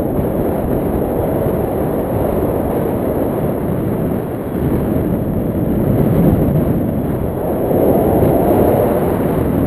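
Wind rushing and buffeting over the microphone of a pole-mounted camera in tandem paraglider flight: a loud, steady rush that swells and eases a little.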